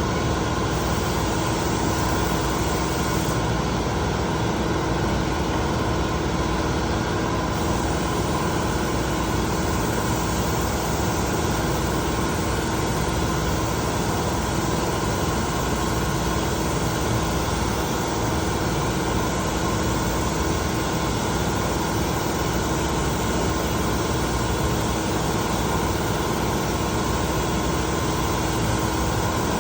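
Spray-finishing equipment running steadily: an even hiss over a constant mechanical hum, with no change in level.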